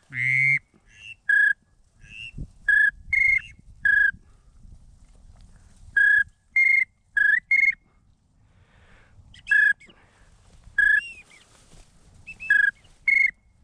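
A duck whistle call blown in short, clear peeps, in quick groups of two or three notes, some sliding up or down, with pauses of a second or two between groups, calling to a circling duck. It opens with one longer, lower, buzzier call note.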